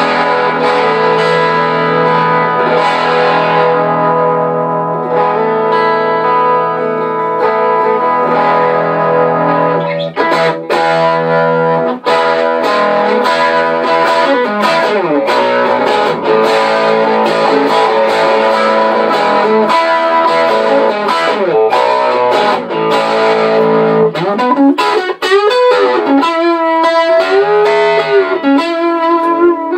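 Telecaster played through a Swart STR Space Tone Reverb tube amp running a 6V6GT power tube (a 1940s Ken-Rad blackplate) into a JBL D120F speaker, reverb off. Held, ringing chords for about the first ten seconds, then busier single-note lines with string bends near the end.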